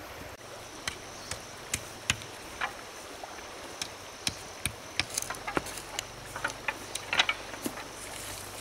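About twenty short, sharp clicks and light knocks at irregular intervals, coming more often in the second half, over a steady rush of running stream water.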